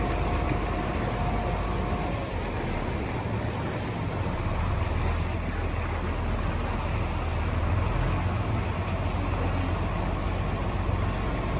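A boat engine running with a steady low hum under a continuous rushing wash of water and air.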